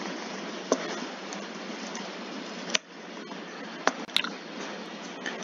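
A handful of sharp computer mouse clicks, one pair close together about four seconds in, over a steady background hiss.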